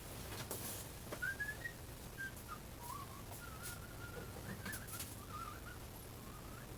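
A person whistling softly to himself, a thin wandering tune, over a low steady hum, with a few faint clicks.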